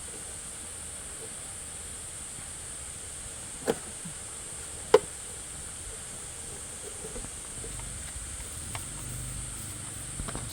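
Two sharp knocks a little over a second apart, over a steady high hiss, with a faint low rumble and a few lighter clicks near the end.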